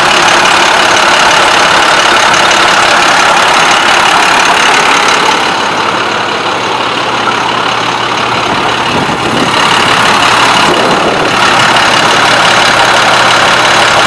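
International DT466E 7.6-litre straight-six turbo diesel idling steadily with the hood open. It dips a little for a few seconds in the middle, then comes back up.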